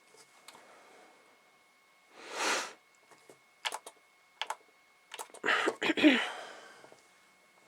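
Clicks and rustling of a PFAFF sewing machine being set up by hand just before stitching: levers and fabric being handled. There is a soft rustle about two seconds in, a few sharp clicks, and a louder rustling clatter near the end.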